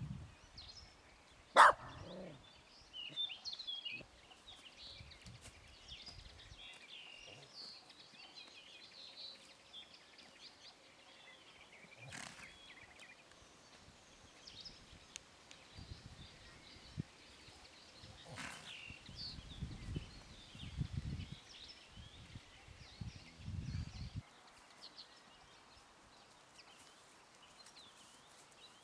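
Small birds chirping on and off. There is one sharp, loud crack about a second and a half in, and a few spells of low rumbling noise.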